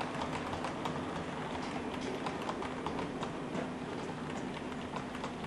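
HO-scale model passenger coaches rolling along the track: a quick, uneven patter of light clicks as the wheels cross the rail joints, over a steady low hum.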